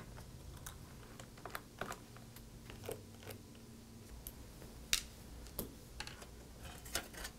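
Scattered light clicks and taps of a small Phillips screwdriver and tiny screws against the aluminium lower case of a 13-inch unibody MacBook Pro, as the bottom-case screws are taken out and the case is handled. The sharpest clicks come about five seconds in.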